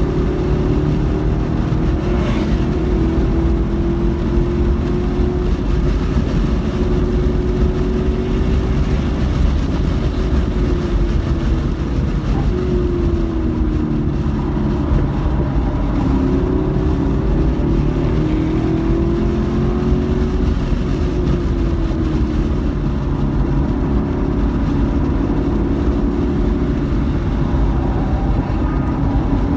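Car engine under hard track driving, heard from inside the cabin over heavy road and wind rumble; the engine note rises and falls as the car accelerates and slows.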